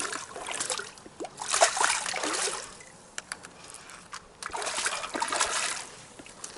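A hooked fish splashing at the water's surface in three bursts while it is played in, with a few sharp clicks between the bursts.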